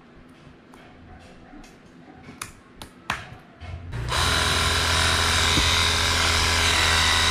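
A few light clicks and taps of a brass quick-connect nozzle fitting being handled, then from about four seconds in a handheld pressure washer starts and runs steadily, its motor humming under the hiss of the water jet.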